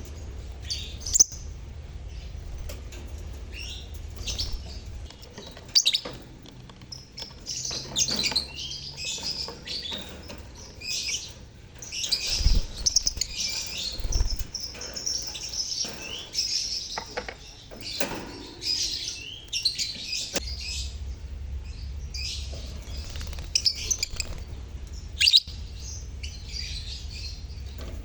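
A colony of lovebirds (Agapornis) chattering and chirping together in many overlapping shrill calls, busiest around the middle. A low hum runs under the start and the last third, and a sharp click comes near the end.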